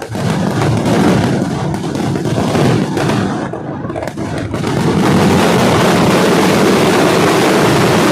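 A daytime fireworks barrage of firecrackers going off in a rapid string of bangs. From about five seconds in the bangs merge into one continuous loud din.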